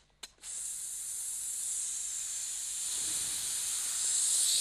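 A man's hiss through clenched teeth, imitating a skyrocket's fuse fizzing. It follows a short click, starts about half a second in, is steady and high, and grows a little louder near the end.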